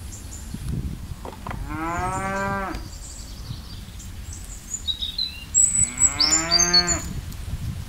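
A cow mooing twice, each call lasting about a second. Small birds chirp around the second call.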